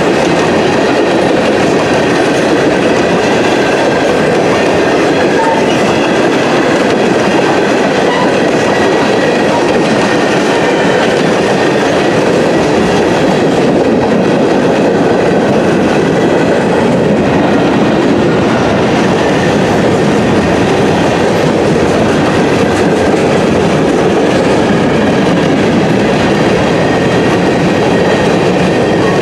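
Freight train of tank cars and covered hopper cars rolling steadily past, with loud, constant steel-wheel noise on the rails.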